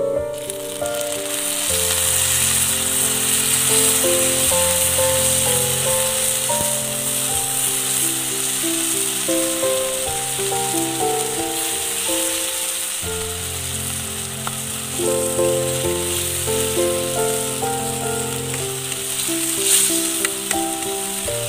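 Background music with a plucked melody and bass line, laid over a steady sizzle of food frying in a pan.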